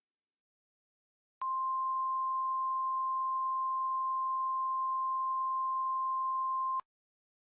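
Emergency alert attention tone: a single steady beep just above 1 kHz, starting about a second and a half in, held for about five seconds and cutting off sharply. It signals that an alert message is about to be read.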